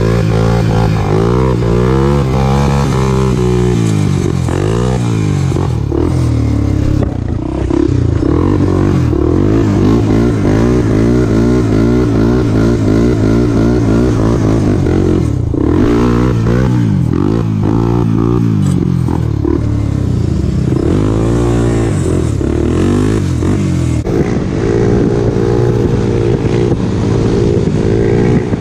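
Honda 400EX quad's single-cylinder four-stroke engine revving up and down over and over as it accelerates and shifts through the gears, with a brief lift off the throttle about halfway through. Near the end a different engine takes over, a big-bore 143cc Kawasaki KLX110 pit bike running steadily at speed.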